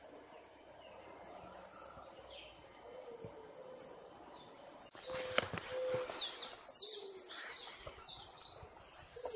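Wild birds chirping and whistling, with short low cooing calls, likely from a dove. The sound gets abruptly louder about five seconds in.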